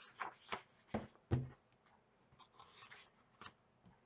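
Pages of a picture book being turned and handled: a few quick paper flicks and taps in the first second and a half, the loudest a dull thump, then a soft rustle of paper.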